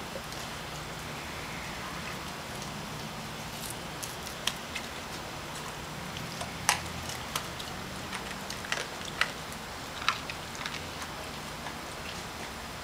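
A Rottweiler chewing a whole raw mackerel: irregular wet crunches and clicks of its teeth on the fish, starting about four seconds in, over steady background noise.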